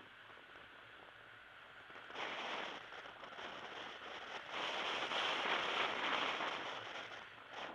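Rushing noise of a moving car heard from inside it. It swells about two seconds in and is loudest in the middle.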